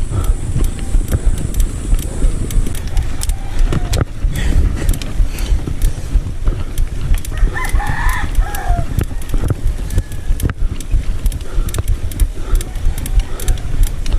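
A rooster crows once, about eight seconds in, over a steady low rumble of wind on the microphone with scattered clicks.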